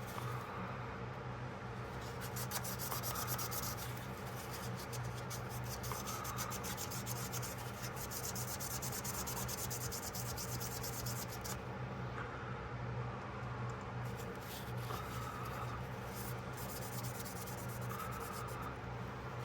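Continuous rapid rubbing and scrubbing on a pocketknife as it is cleaned by hand, many fine scratchy strokes that thin out about halfway through, over a steady low hum.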